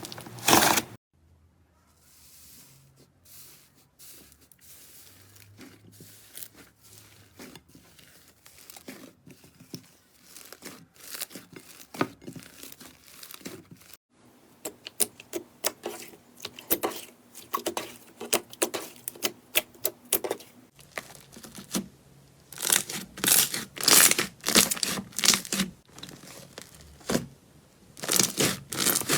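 Slime being squeezed, stretched and poked, giving dense runs of small crackles and pops. The sound changes abruptly about a second in, about halfway through and about two-thirds through, and the crackling is louder and thicker in the last part.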